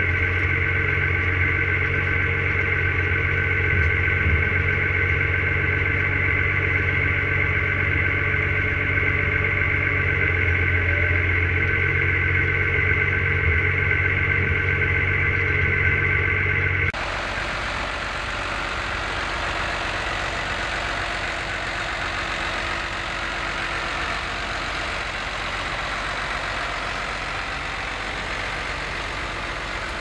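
New Holland T6050 tractor's diesel engine running steadily under work, heard inside the cab as a deep hum with a steady high whine. About two-thirds of the way through, the sound switches abruptly to the same tractor heard from outside as it pulls a reversible plough through the soil.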